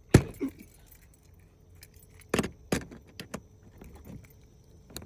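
Sharp metal-on-metal knocks and clinks from a lock being worked apart by hand. The loudest comes just after the start, two more follow about two and a half seconds in, with lighter clinks between.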